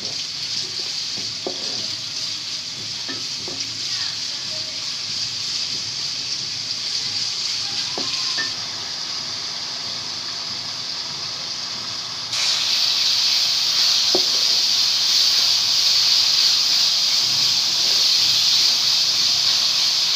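Sliced onions sizzling in hot oil in a metal pot, stirred now and then with a wooden spoon that gives a few faint scrapes and knocks. The sizzle jumps suddenly louder a little past halfway and stays there.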